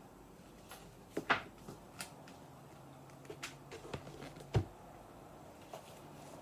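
Scattered clicks and knocks from hands handling objects on a desk, several in all, the loudest a bit over a second in and again about four and a half seconds in.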